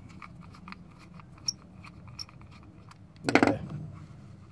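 Small screwdriver turning a tiny screw in a plastic lamp housing, with faint scattered clicks and light scraping. A short, louder sound with a tone in it comes a little over three seconds in.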